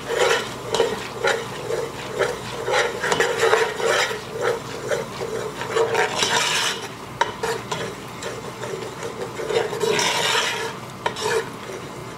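A spatula stirring and scraping a flour-and-oil roux in a nonstick pot, two or three quick strokes a second, with the roux sizzling as the flour fries. The stirring stops shortly before the end.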